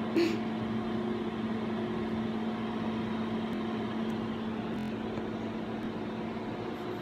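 A steady machine hum with a constant pitch, and a single click about five seconds in.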